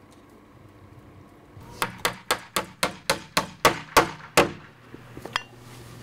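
Hammer driving a nail with about ten quick, evenly spaced blows, roughly four a second, followed by two lighter taps.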